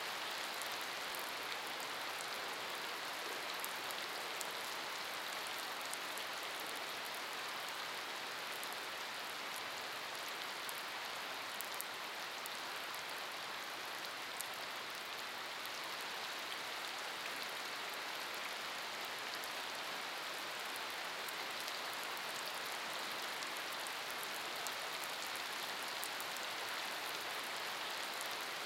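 Steady summer rain falling on a wet surface: an even hiss with a fine ticking of individual drops striking.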